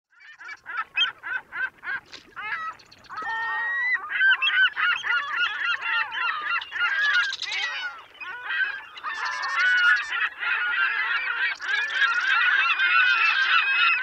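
A flock of birds calling, many calls overlapping. The calls come one by one at first and thicken into a dense, continuous chorus about four seconds in.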